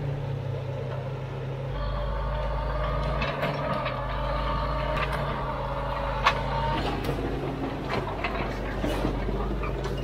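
Caterpillar D4 7U bulldozer's diesel engine running steadily as it pushes through gorse, with scattered sharp cracks of brush and branches snapping and one louder snap about six seconds in.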